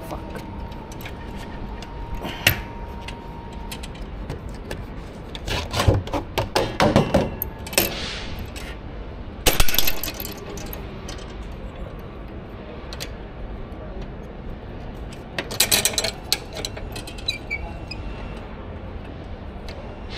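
Clinking and clattering of hand tools and metal parts being handled, in three bursts of sharp knocks. A steady beep-like tone stops about four seconds in.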